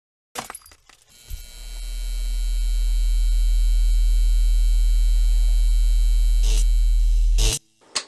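Neon sign's electrical hum: a few sharp crackles as it sparks on, then a low mains buzz swells up and holds steady. Two crackling bursts come near the end before it cuts off suddenly.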